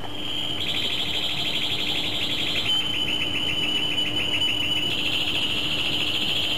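Canary singing: one long unbroken run of rapid high-pitched trills, shifting to a smoother, purer rolling tone about halfway through and back to a fast trill near the end.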